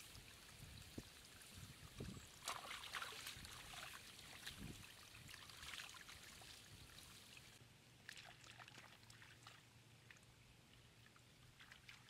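Faint trickle of runoff water pouring over a mud lip into a plastic basket fish trap, with scattered crackles and rustles, busiest in the first half.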